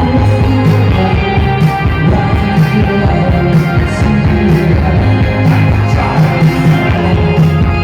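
Live band music played loud, with a steady driving beat, a heavy repeating bassline and sustained synth or guitar lines.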